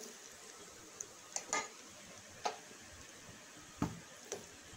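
Spatula knocking and scraping against a stainless steel kadai as cooked rice is mixed: a few separate faint clicks spaced irregularly.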